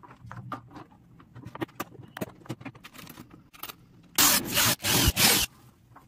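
Hands working wire mesh and a metal bracket against a plastic bucket: light clicks and scrapes throughout. About four seconds in come three loud rasping scrapes in quick succession.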